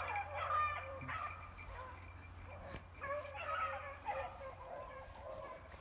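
Pack of beagles baying as they run a rabbit's trail: several hound voices overlapping, the chorus easing off about a second in and swelling again around three seconds in.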